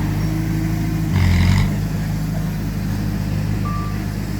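Heavy diesel earthmoving machinery running steadily, with a brief louder surge about a second in and a short beep near the end.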